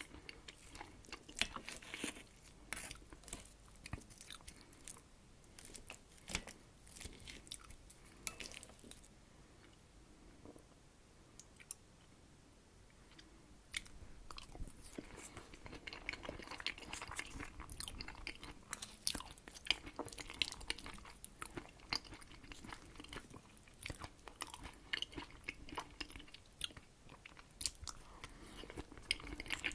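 Close-miked chewing of herring under a fur coat salad, a soft layered beetroot, vegetable and herring salad: wet, clicky mouth sounds and smacking. The chewing eases off for a few seconds about a third of the way in, then picks up again.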